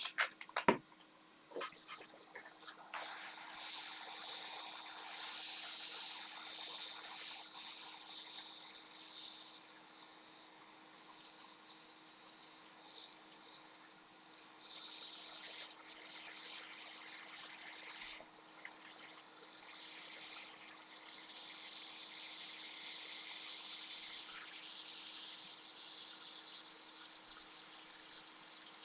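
A playing card scraping and sliding along the edge of a MacBook Pro display bezel as it is worked under the glued bezel, a scratchy hiss that swells and fades in strokes, with a few sharp clicks in the first couple of seconds. The bezel is not coming loose.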